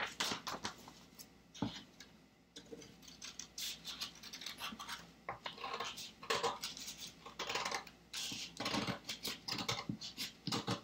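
Scissors cutting through folded paper: a run of short, crisp snips, roughly one or two a second, after the sheet is shifted on the table near the start.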